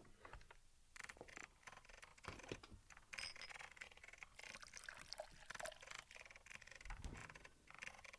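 Faint clicks and handling noises: sound effects of fetching a glass of water, starting about a second in.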